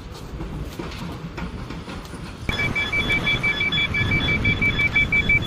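Vehicle engine running with a low rumble; about halfway through, an electronic warning beeper starts up loudly, sounding a rapid, even series of high beeps, typical of a reversing alarm on a truck or forklift.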